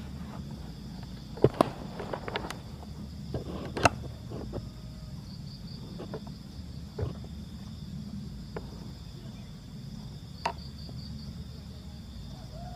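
Insects trilling steadily in a high, continuous band, here and there in short pulsed runs. A few sharp knocks and clicks of handling cut through, clustered between about one and a half and four seconds in, the loudest near four seconds, with single ones near seven and ten and a half seconds.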